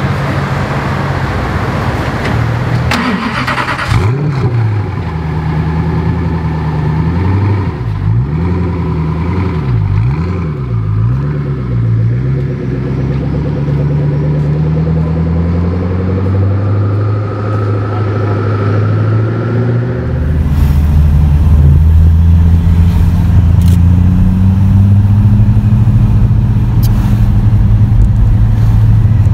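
Koenigsegg Agera R's twin-turbo V8 running, revved up and down several times in quick succession about six to twelve seconds in, then pulling away with rising revs. From about twenty seconds in it becomes a louder, steady low engine and road drone heard from inside a car following it.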